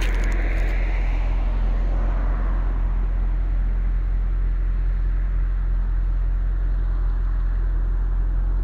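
A steady low mechanical hum, like an engine or motor running, with a hiss that fades away over the first couple of seconds.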